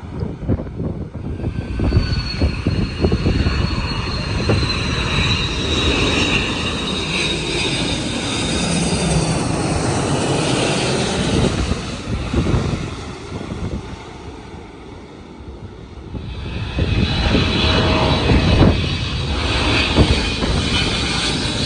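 Jet airliner engines passing low overhead on final approach to land, with a falling whine over a heavy rumble. The noise swells about two seconds in, fades by about twelve seconds, then rises again loudly from about seventeen seconds.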